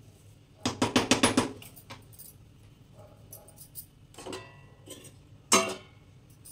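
A wooden spatula knocking against an aluminium pressure cooker: a quick run of about eight sharp knocks about a second in, then a softer knock and one single sharp clatter near the end.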